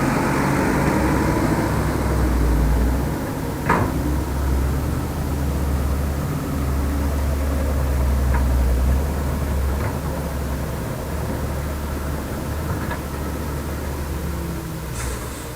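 Heavy diesel engine of an excavator or dump truck running steadily, its deep rumble rising and easing. A few sharp knocks are heard, the loudest a little under four seconds in.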